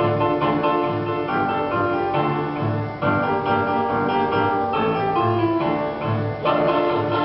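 Music from a school choir's performance: an instrumental accompaniment passage with new chords every few seconds, between sung sections.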